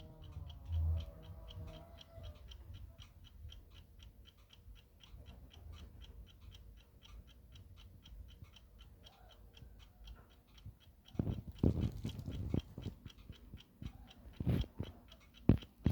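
Junghans alarm clock ticking fast and evenly. A few louder knocks come about eleven to thirteen seconds in and again near the end.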